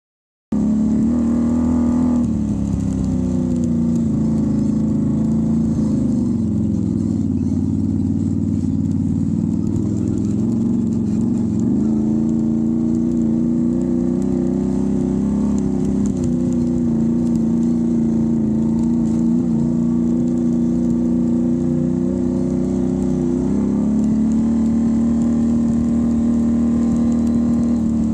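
Can-Am Renegade ATV's V-twin engine running while riding, its pitch rising and falling with the throttle. The sound cuts in abruptly about half a second in.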